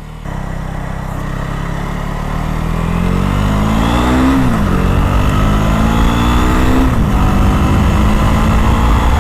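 125 cc motorcycle engine accelerating hard under load, its pitch climbing and then dropping at two upshifts, about four and seven seconds in.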